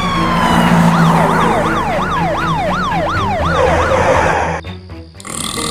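Police siren sound effect: one falling wail, then a fast yelp sweeping up and down about three times a second, which stops about four and a half seconds in.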